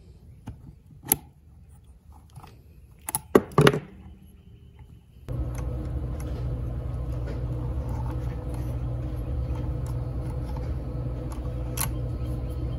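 Small metal clicks and taps as the wire springs on a Quadrajet carburetor's primary throttle shaft are handled, the loudest a quick cluster about three to four seconds in. About five seconds in, a steady low hum of unknown machinery starts abruptly and carries on.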